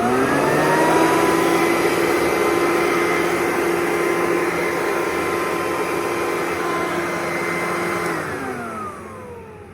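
Electric leaf blower running. Its motor spins up with a rising whine, runs steadily with loud rushing air, then is switched off about eight seconds in and winds down with a falling whine.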